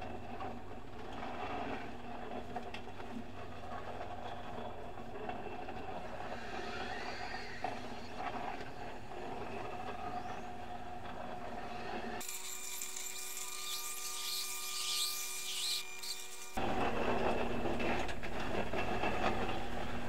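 Motor-driven rotating drum of a microwave pyrolysis reactor turning, with spiral flighting inside, giving a steady mechanical hum and whine. About 12 seconds in the low hum drops away for about four seconds, leaving a thin hiss with a few steady tones, then comes back louder.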